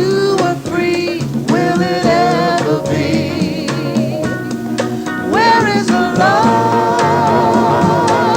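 Live band music with singing: voices hold long notes over drums, bass and guitar, and near the end one voice sustains a note with a wide vibrato.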